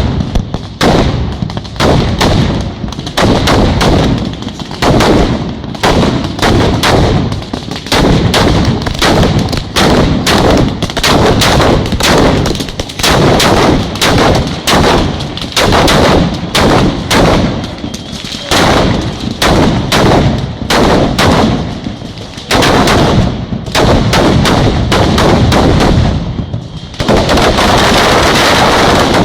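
Neapolitan ground fireworks battery going off: a rapid, unbroken string of loud bangs, several a second, merging into one continuous crackling din near the end.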